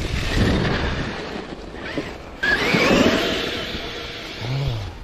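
Traxxas X-Maxx 8S RC monster truck driving, its electric motor whining up and down in pitch over a rushing noise of wind on the microphone. A louder surge with a rising whine comes about halfway through.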